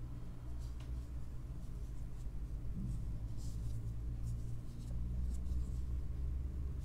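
Faint scratching and rustling of a metal crochet hook pulling yarn through stitches while single crochet is worked, over a steady low hum.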